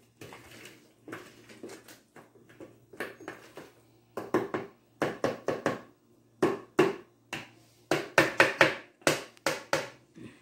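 A spatula beating cake batter of sugar, margarine and eggs by hand in a glass bowl, knocking and scraping against the glass in quick, irregular strokes. The strokes come faster and louder from about four seconds in.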